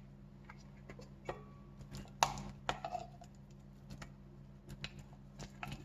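Light clicks and knocks of kitchen utensils and a container being handled, scattered through, the sharpest a little over two seconds in, over a steady low hum.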